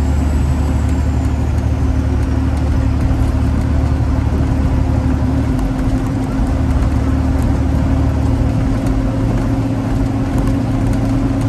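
Semi-truck diesel engine running steadily, a low drone heard from inside the cab. The deepest part of the hum eases a little about halfway through.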